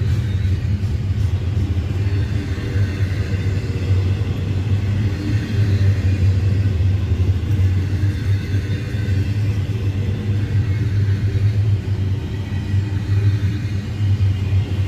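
Double-stack intermodal freight train cars rolling past, wheels on the rails making a steady low rumble.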